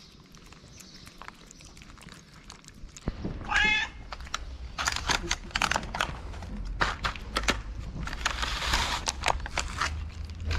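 Stray cats eating from clear plastic food tubs, with scattered clicks and rustling as the tubs are handled and the food is eaten. One short meow about three and a half seconds in is the loudest sound.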